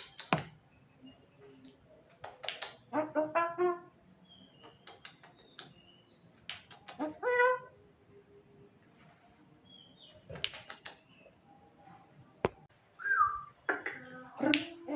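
Javan myna giving a varied string of calls: sharp clicks, harsh rasping notes, short high whistles, and two rising squeals with a stepped, warbling pitch a few seconds apart.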